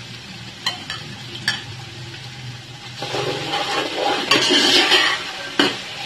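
Two light knocks of a spoon on an aluminium pot, then, from about three seconds in, boiled chickpeas being stirred and scraped around the pot in sizzling oil with chilli powder, ending in a further knock.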